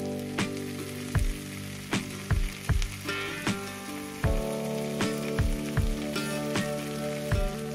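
Sliced mushrooms and onions sizzling in a frying pan, under background music with a steady beat.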